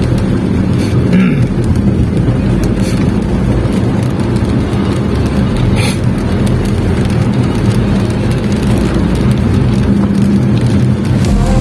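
Car engine idling, a steady low hum, with a few faint short taps scattered through it.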